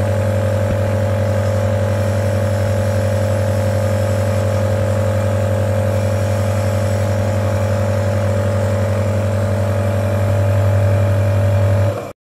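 Omron NE-C28 compressor nebulizer running with a steady, loud hum, a little louder for its last two seconds, then switched off and cutting out abruptly at the very end. The medicine cup is nearly dry, so the mist comes out only now and then.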